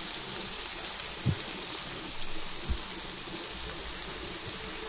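Sliced ivy gourd frying in plenty of hot oil on a high flame: a steady rain-like sizzle, with two small knocks about a second and a half apart early on.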